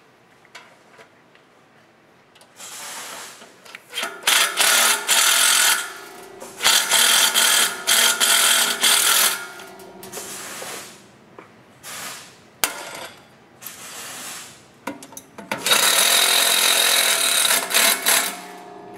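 A cordless drill driving screws to fasten a metal exhaust shield, running in about six bursts of one to three seconds each with short pauses between, the longest burst near the end.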